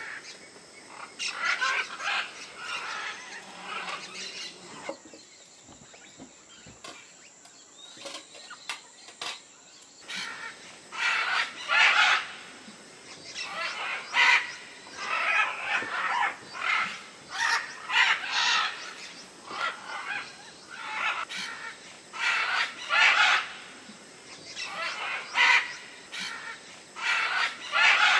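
Several birds giving harsh, repeated squawking calls in quick clusters. The calls ease off for a few seconds near the start, then come almost without pause.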